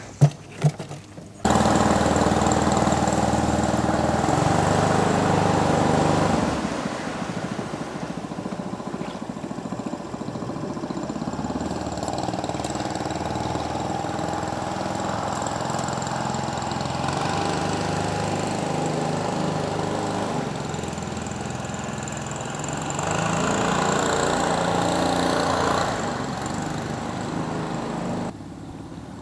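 Small single-cylinder gas engine of a Mokai jet kayak running steadily, coming in abruptly a second or so in, easing off about six seconds in and picking up again for a few seconds near the end.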